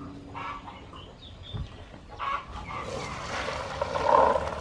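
Chickens clucking now and then. Near the end, boiled black-eyed peas pour from a pot into a plastic colander with a wet rush, the loudest sound.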